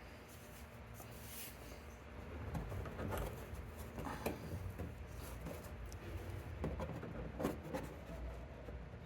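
Small metal pick scraping and prying at a plastic push-in plug, with scattered rubbing and several sharp clicks as the plug is worked loose.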